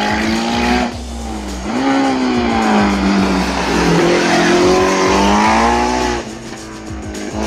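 Hillclimb race car's engine revving hard as it passes through a bend. Its pitch dips as the driver lifts off about a second in, climbs again, drops as the car slows for the corner about four seconds in, then rises as it accelerates away. The sound falls off sharply about six seconds in.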